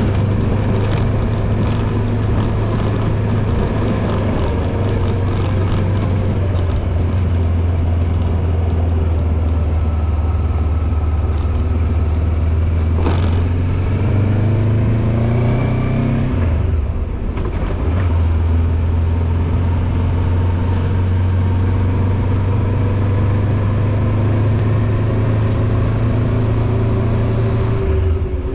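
Voge 525 DSX motorcycle's parallel-twin engine running at a steady city-riding pace, heard from the rider's position. About two-thirds of the way through the engine note rises, breaks off briefly, then settles steady again.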